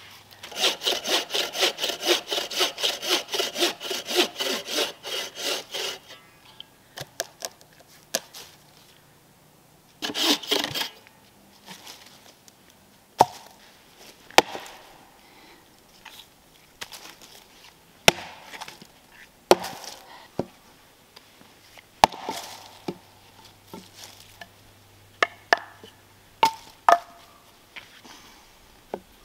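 Bucksaw cutting through a log with fast push-pull strokes, about three to four a second, for the first six seconds. A short second burst of sawing comes near ten seconds. After that there are scattered sharp knocks of cut wood pieces being handled.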